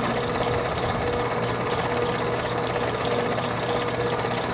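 A motor running steadily: an unbroken whirr with a fast fine rattle and a steady hum.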